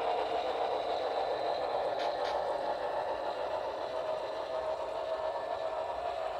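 Model passenger train rolling past on the layout track: a steady whir of small wheels and motor, with two light clicks about two seconds in, easing off slightly toward the end.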